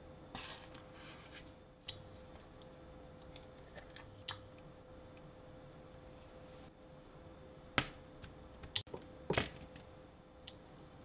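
Food being put into a dry nonstick frying pan: a sheet of rice paper laid in, an egg cracked onto it, and corn kernels dropped on top. A brief rustle near the start, a few single clicks, and a cluster of sharp taps near the end, over a faint steady hum.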